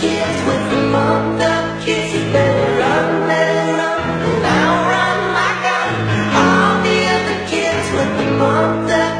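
Music with sung vocals, several voices together over held bass notes that change every second or two.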